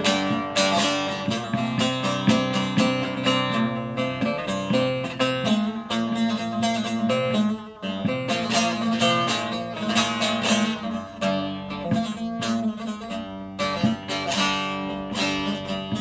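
Solo bağlama (Turkish long-necked saz), rapidly strummed and plucked, playing an instrumental interlude of a hicaz-mode türkü. There is a brief drop in loudness about halfway through.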